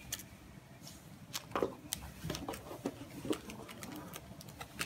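Light, scattered clicks and taps with a soft rustle as hands handle trading cards and their packs on a playmat.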